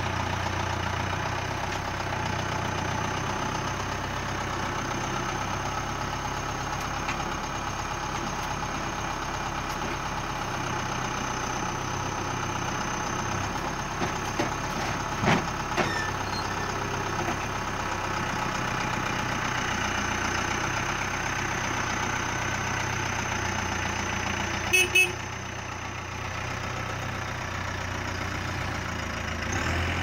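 Branson 7845C tractor's diesel engine running steadily while its front loader lifts and tips a load into a trailer bed, with a few knocks and a clatter about halfway through as the bucket dumps. Two sharp short sounds come close together near the end.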